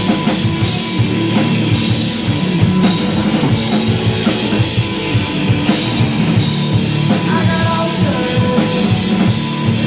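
Rock band playing live: a drum kit hitting steadily under loud amplified instruments.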